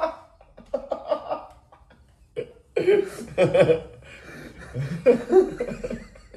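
Two men laughing in several bursts, the loudest about three seconds in.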